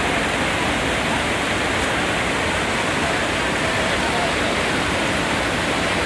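Whitewater rapids of a fast mountain river rushing over boulders, a steady, loud, even wash of water noise.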